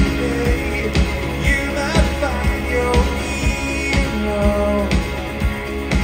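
Live rock band playing: a male lead vocal over a semi-hollow electric guitar and a drum beat of about two hits a second.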